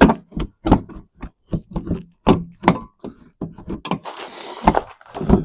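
A quick, irregular string of knocks and clicks from hard parts being handled and set down during a headlight and wiring install, with a brief rustling hiss about four seconds in.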